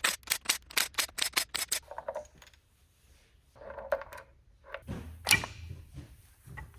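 Cordless impact driver working bolts out of an engine's cam housing: a quick even run of sharp metallic clicks, about seven a second, for the first two seconds. Then metal engine parts are handled, with one sharp clack about five seconds in.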